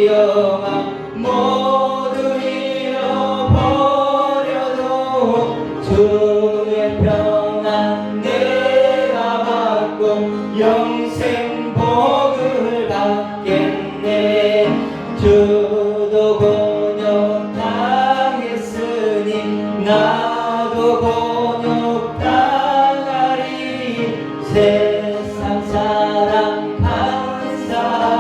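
Church praise music: voices singing a gospel song with instrumental accompaniment.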